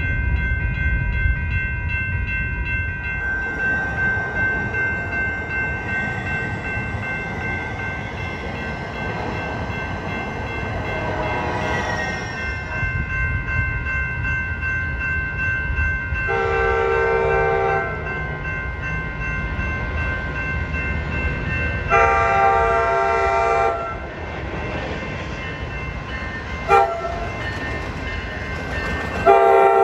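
Coaster commuter train, led by its bi-level cab car, sounding its horn on approach in the grade-crossing pattern of long, long, short, long, over the train's low rumble. The last long blast is the loudest.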